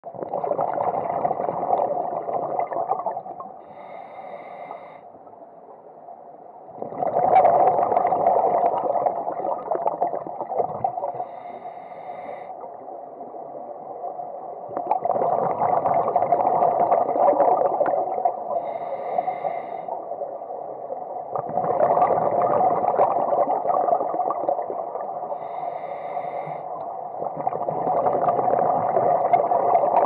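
Scuba regulator breathing underwater: a loud bubbling rush on each exhale, lasting about three seconds, alternating with a quieter inhale that carries a thin high whistle, about five breaths in all.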